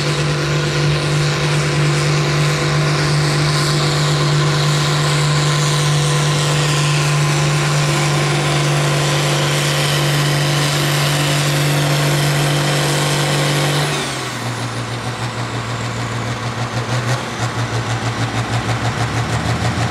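Ford TW-25 tractor's 6.6-litre six-cylinder diesel running flat out under full load while pulling a weight-transfer sled, a high whine sitting over the steady engine note. About fourteen seconds in, the engine drops off sharply to a lower, pulsing run as the throttle comes off at the end of the pull.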